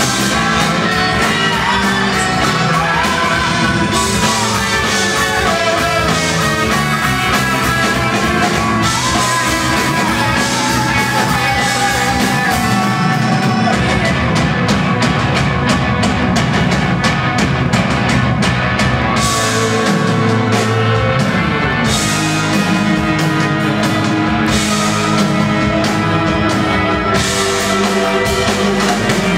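Live progressive rock band playing loudly: drum kit, bass, electric guitars and keyboards. A lead line slides up and down in pitch over roughly the first twelve seconds.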